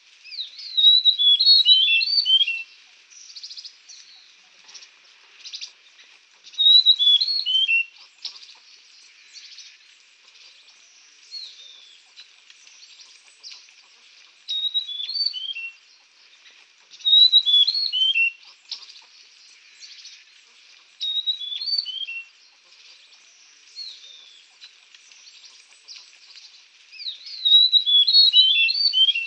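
A songbird singing: a short phrase of quick falling notes, repeated every few seconds, with fainter chirps between the phrases.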